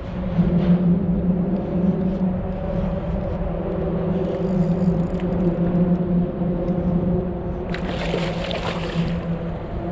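A hooked striped bass thrashing at the surface beside the kayak, a splash of about a second and a half near the end, over a steady low hum.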